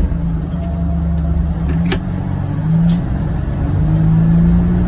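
A John Deere Gator XUV835M utility vehicle driving steadily with its engine and drivetrain droning, and a whine that rises slightly near the end. Two brief knocks sound about two and three seconds in.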